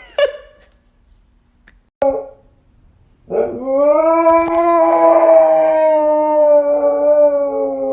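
A dog gives a short yip about two seconds in, then about a second later starts one long, steady howl that sinks slightly in pitch.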